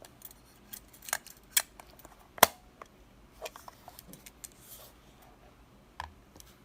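Topcon UNI mechanical film camera being handled and worked, giving a series of sharp clicks with softer ticks between; the loudest click comes about two and a half seconds in.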